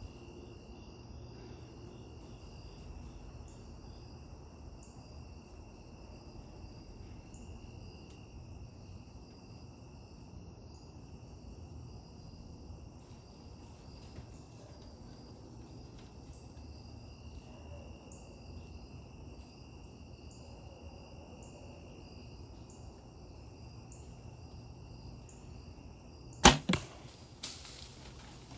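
Crickets and other insects trilling steadily in the background. About 26 seconds in, the loud sharp crack of a bow shot, the arrow passing straight through a buck, followed by a few quieter thumps.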